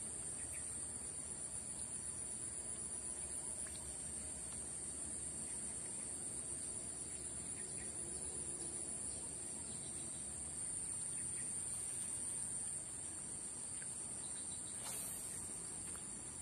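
A chorus of insects chirring in a steady, high-pitched drone that does not let up.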